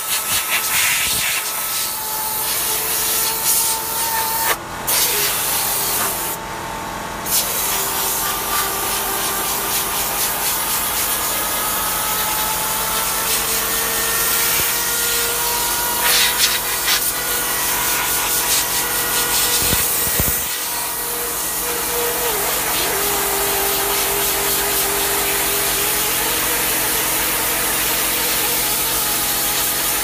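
Water jetting from a spray lance onto an air conditioner's heat-exchanger fins: a steady loud hiss with a brief break a few seconds in and a faint steady hum underneath. It is the water rinse that washes detergent and tobacco tar out of the coil.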